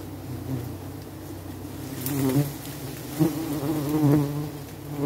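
Giant honeybees buzzing in a swarm, a wavering hum that swells louder several times in the second half.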